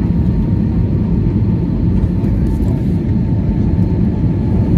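Steady low rumble of an Airbus A320's engines and rushing air, heard inside the cabin during the descent to land.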